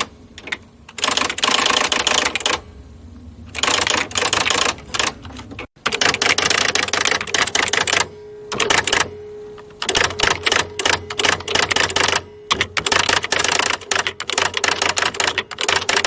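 Electric typewriter typing in quick runs of keystrokes, each run a second or two long with short pauses between. About halfway in, a steady hum joins under the typing.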